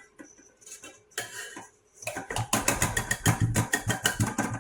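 Kitchen utensils and dishes clattering: a few soft knocks, then from about two seconds in a fast run of clicks and scrapes, like a spoon or container working against a bowl of freshly milled flour.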